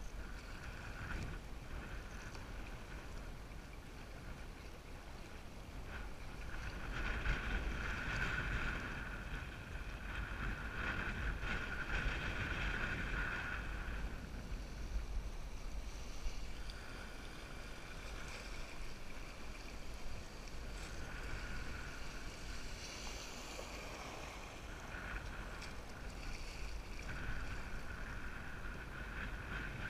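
Fast river water rushing and splashing around a canoe's hull through a riffle, with wind rumbling on the camera microphone; it grows louder for several seconds in the middle.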